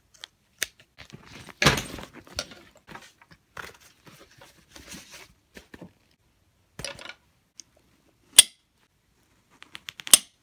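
A camera being packed into a padded nylon camera bag: fabric rustling and bumping, then a single sharp click about eight seconds in and a quick run of small clicks near the end as the bag's strap and clasp are handled.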